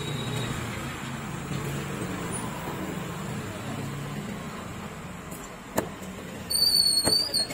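A long knife chops once through fish onto a wooden chopping block, over a steady low rumble. Just after it comes a shrill, wavering high-pitched squeal lasting under a second, the loudest sound here.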